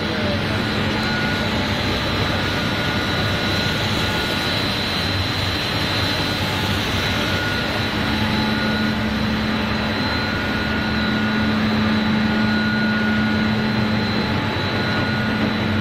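Wheat snack extruder processing line running: steady machine noise with a constant low hum and a thin high steady tone, getting a little louder about twelve seconds in.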